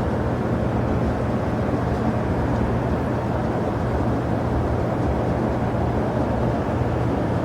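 Steady noise of jet airliner engines, an even sound with a low hum underneath that neither rises nor falls.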